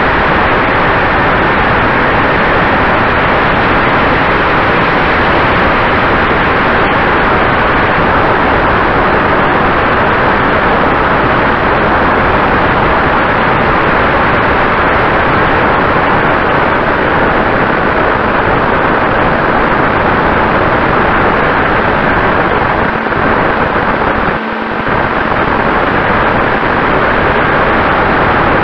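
Loud rushing airflow on the microphone of a camera mounted on a flying ParkZone T-28 Trojan RC plane, mixed with a faint steady whine from its electric motor and propeller. The rush dips briefly about 24 seconds in.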